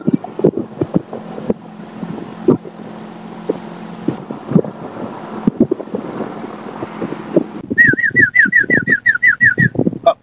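Tour boat's motor running steadily with wind buffeting the microphone. About eight seconds in, a rapid run of high, falling whistled chirps, about six a second, starts, followed near the end by a second run of pulsed calls.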